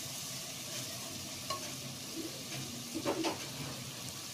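Curry masala of garlic paste, turmeric and chili powder sizzling steadily as it fries in oil in a non-stick pot while being stirred with a spatula. The spatula gives a few light scrapes against the pot, about a second and a half and three seconds in.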